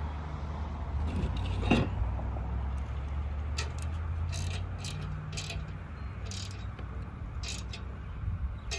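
Small metal clinks of bolts, washers and nuts being handled and fitted while a leg is bolted onto a cast-iron garden bench: a knock, then several sharp clinks. A steady low hum runs underneath.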